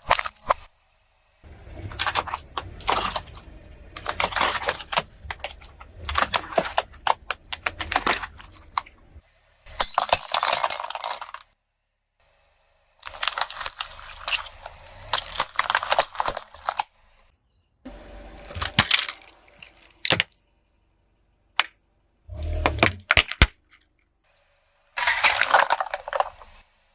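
Objects being crushed under a car's tyres in a run of short, separately cut clips: crunching, cracking and glassy clinking, each burst starting and stopping abruptly with silent gaps between.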